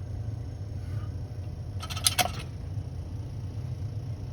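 Bell & Gossett BG100 circulator pump motor humming steadily, its impeller seized, with a quick cluster of sharp metallic clicks about two seconds in.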